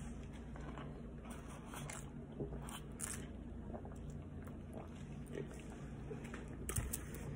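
Quiet drinking from a large foam fountain-drink cup: soft sips and swallows, with a few faint clicks and mouth noises scattered through.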